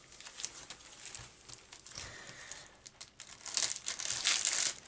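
Clear plastic wrapper of a scrapbook paper pad crinkling as the pad is handled and turned over, with a louder spell of rustling near the end.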